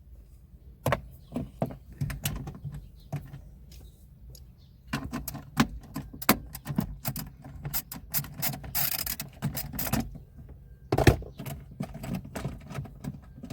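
Irregular metallic clicks and clinks of a mini 3/8-inch ratchet and extension bar working a 10 mm bolt deep in a car dashboard, with a brief rustle about nine seconds in and a louder knock about two seconds later.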